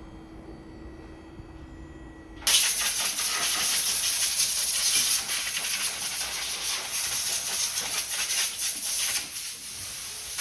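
A faint low hum, then a loud, steady hiss that starts suddenly about two and a half seconds in and keeps going.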